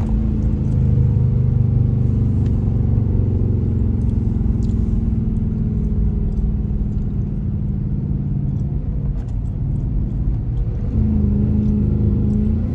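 A Dodge's engine droning steadily while cruising, growing a little louder about eleven seconds in.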